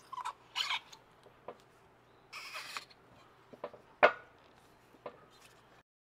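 Clicks, rubbing and light knocks of a rubber impeller being worked by hand onto a seawater pump's shaft, with two short scraping rubs and one sharper knock about four seconds in.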